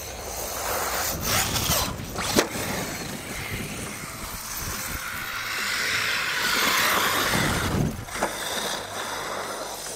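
EM-Racing Tyrant 1/8 4WD brushless electric RC monster truck driving through snow: the motor and tyres churn the snow with a few sharp knocks from bumps and landings, the loudest about two and a half seconds in. A longer, stronger surge of wheelspin comes a little past the middle.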